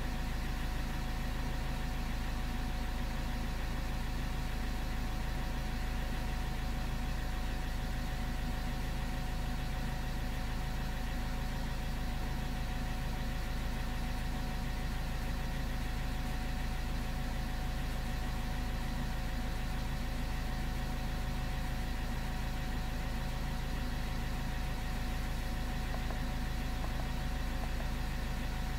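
Car engine idling steadily, unchanging throughout.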